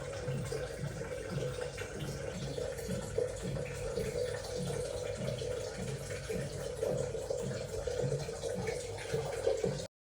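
Water running from a kitchen tap into a sink, as for washing produce. It cuts off suddenly near the end.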